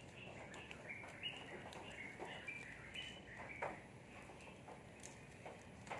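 Faint bird chirps: a string of short, high notes stepping up and down. Alongside them are a few light clicks and rustles from garlic being peeled by hand.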